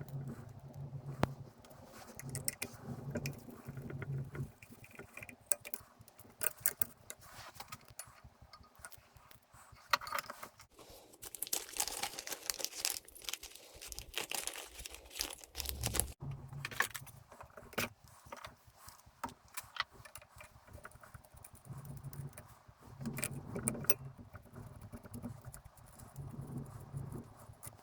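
Small metal parts and hand tools clinking and rattling, with many scattered sharp clicks, as a small hobby drill press is taken apart.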